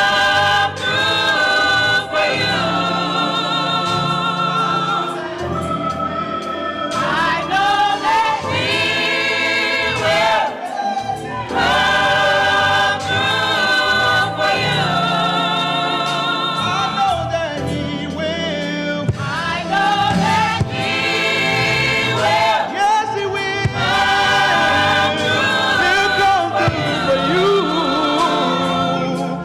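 A gospel choir singing, holding long chords with vibrato in phrases broken by short gaps every few seconds.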